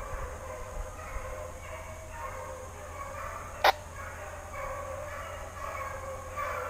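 A pack of hunting hounds giving tongue in the distance, a faint run of repeated bays: the hounds working a wild boar's trail. A single sharp click cuts in about halfway through.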